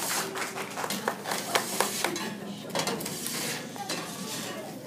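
Rakes scraping and scratching across a wooden stage floor in irregular strokes, with small clicks and knocks among them.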